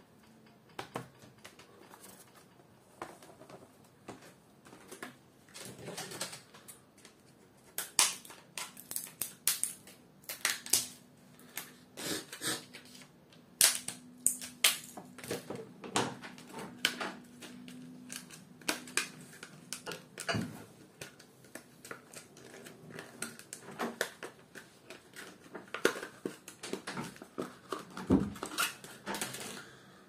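Irregular sharp clicks, taps and knocks of hard plastic and metal as a ThinkPad W540 laptop is shut, turned over and its open RAM bay worked on by hand, with memory modules being handled.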